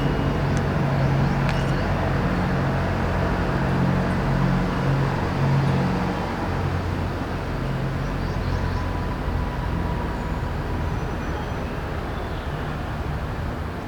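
Urban traffic noise dominated by a nearby vehicle engine's steady low hum, which eases off gradually through the second half. A few faint high chime tones sound over it.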